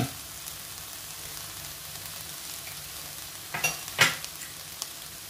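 Button mushrooms and vegetables frying in a pan with a steady sizzle, with two sharp clicks about three and a half and four seconds in.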